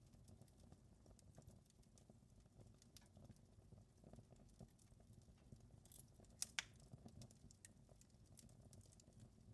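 Faint wood fire crackling over a low rumble, with scattered small clicks and two sharper pops about six and a half seconds in.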